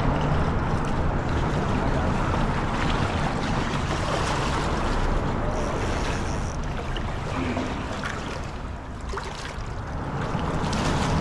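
River water splashing and sloshing around wading legs and a hooked steelhead thrashing at the landing net, over a steady low rumble.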